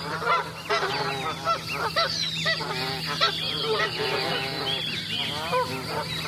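A flock of Canada geese honking continuously, many calls overlapping at once.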